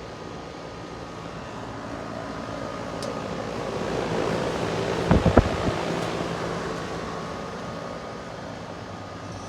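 Lennox Merit 14 SEER heat pump running in heat mode: a steady fan and compressor hum with faint constant tones. A broad whooshing swell builds and fades in the middle, with a few sharp thumps at its peak.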